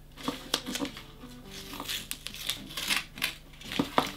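Paper slips and an envelope rustling and crinkling in the hands as they are sorted through, in a string of short crisp rustles, over faint background music.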